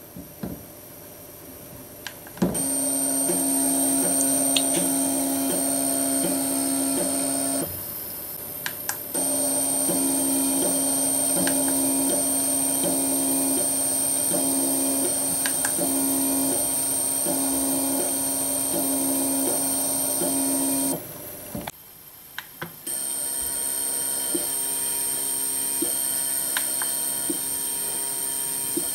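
Stepper motor driven by a TB6600 microstep driver, running with a steady whine made of several pitched tones that pulse at a regular rhythm. It starts about two seconds in, stops briefly twice (about 8 s and 21 s in), and after the second stop runs on a little quieter with a different pitch pattern.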